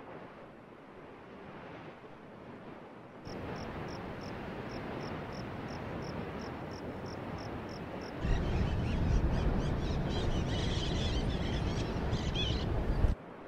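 The Masaya volcano crater roaring in a steady rush like surf, in several cut-together clips. In the middle clip a high, regular chirping comes about three times a second. The last clip is louder, with a deep rumble, and cuts off suddenly just before the end.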